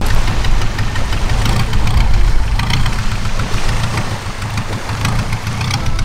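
Engine of a Thai longtail boat running at idle, a steady low rumble.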